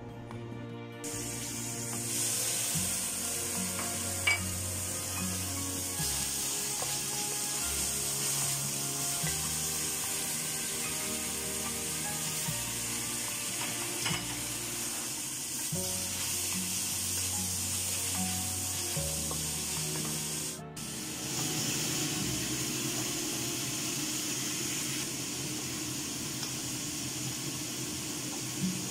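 Kelp, garlic and scallions sizzling as they are stir-fried in oil in a wok, stirred with a wooden spatula, with background music. The sizzle starts about a second in and breaks off briefly about two-thirds through.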